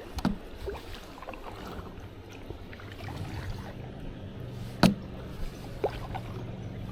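A plastic kayak being paddled, water moving around the hull, with a few sharp knocks; the loudest comes about five seconds in.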